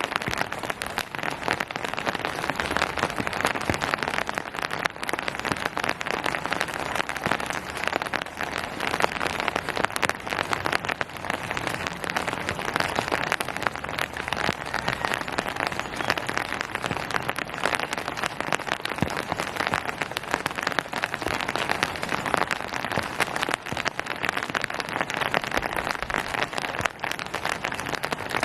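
Steady rain falling on surfaces, a dense, even patter of drops.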